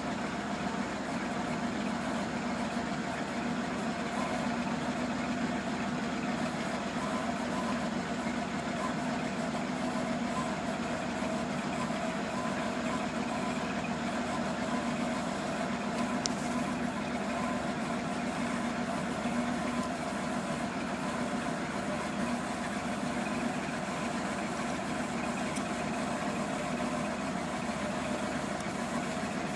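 1976 Ford F800 grain truck's 391 gas V8 idling steadily.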